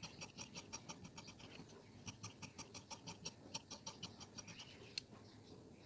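Fabric scissors snipping through cloth: faint, quick repeated cuts, about four a second, that stop a little after four seconds, followed by one sharper click near the end.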